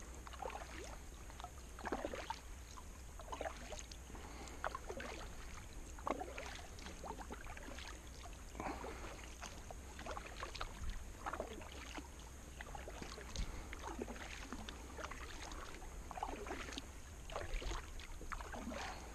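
Kayak paddle strokes in calm water: the double-bladed paddle dipping on alternate sides, giving soft splashes and drips in a steady rhythm of roughly one stroke every second or so.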